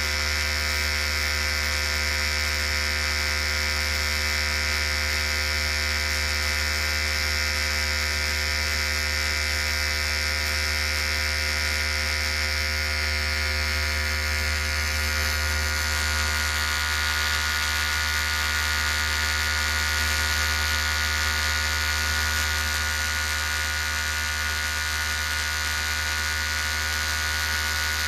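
Electric hair clipper running steadily with a continuous buzz.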